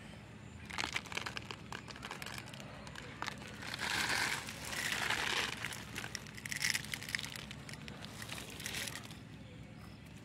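Crinkling and rustling as white fertilizer granules are handled and scattered by hand among okra plants and dry vegetation. It comes in uneven bursts, loudest around the middle.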